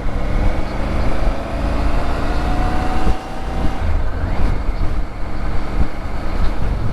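Motorcycle engine running under way, its note slowly rising as it accelerates, with a brief dip about three seconds in, over heavy wind rumble on the microphone.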